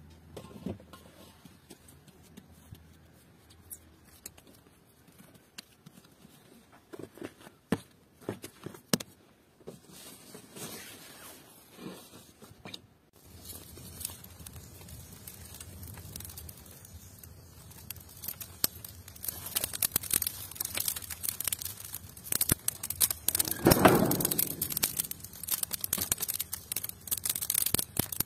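Wood fire crackling and popping inside a clay tandoor, with dry brushwood rustling and snapping as it is fed in, growing denser in the second half and with one louder rustling thud about 24 seconds in. Before that, about thirteen seconds of quiet with a few scattered small taps and clicks.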